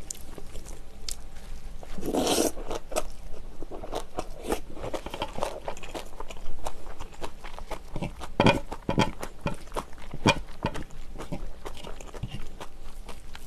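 Close-miked wet chewing and mouth sounds of a person eating braised kimchi, with irregular clicks and crackles. There is a short breathy rush about two seconds in, and a few louder clicks later on.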